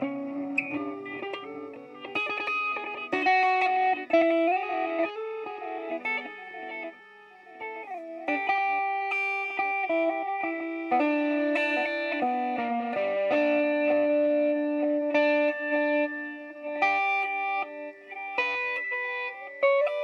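Electric guitar played through a BOSS DD-8 Digital Delay pedal set to reverse mode, the echoes played backwards so they swell in behind the picked notes. Several sustained notes overlap and change pitch every second or so, with a short quieter gap about seven seconds in.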